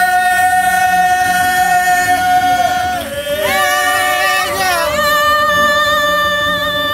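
Voices singing a traditional Bukawa chant, holding one long high note, sliding through a wavering change of pitch about halfway, then holding a slightly lower note.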